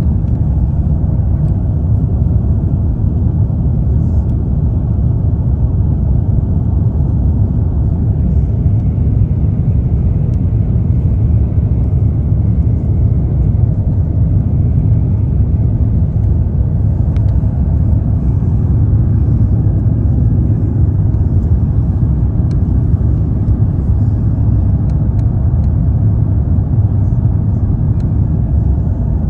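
Airbus A350-900 cabin noise during the climb-out after takeoff: a loud, steady low rumble of its Rolls-Royce Trent XWB engines and rushing air, with no breaks.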